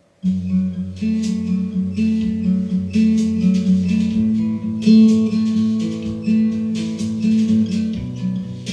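Instrumental song intro played back over hi-fi loudspeakers: guitar chords with a bass line, struck about once a second. It starts suddenly about a quarter second in.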